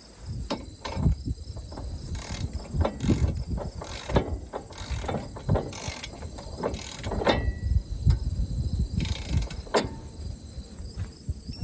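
Socket wrench ratcheting and metal tools clicking and knocking as the knife bolts are torqued down to 110 foot-pounds, in irregular strokes with one sharp click near the end. Crickets chirp steadily in the background.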